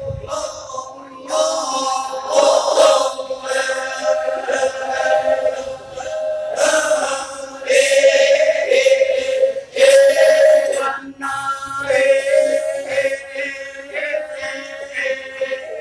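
Ma'badong, the Toraja funeral chant: a group of mostly male voices singing together in long held notes that shift slowly over one steady sustained tone, with short breaks for breath.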